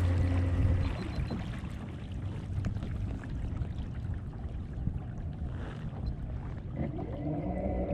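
Bixpy Jet electric kayak motor humming steadily at top speed, cutting off about a second in. Water rushes and laps along the kayak hull after it, and near the end the motor starts again with a higher hum of several tones as it is set to go in reverse.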